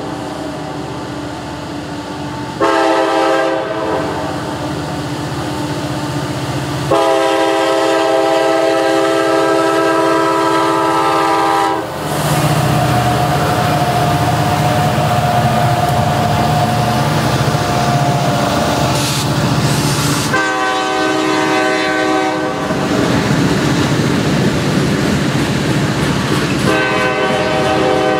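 Diesel freight locomotive horn sounding a short blast and then a long one for the crossing. The locomotives then pass close by in notch 8, their engines rumbling loudly under heavy load as they pull the train up to speed, and two more horn blasts follow as the freight cars roll past.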